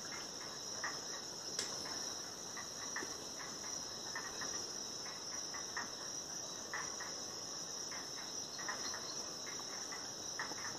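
Steady, high-pitched chorus of night insects, with scattered faint light clicks and crackles throughout.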